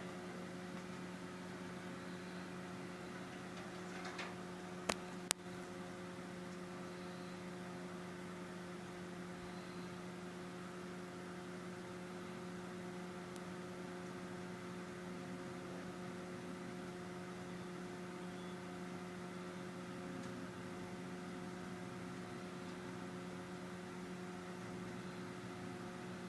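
Steady electrical hum over faint hiss, with a few sharp clicks about four to five seconds in.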